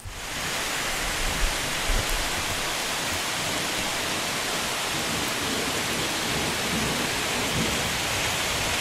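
Heavy rain falling steadily, an even, dense hiss.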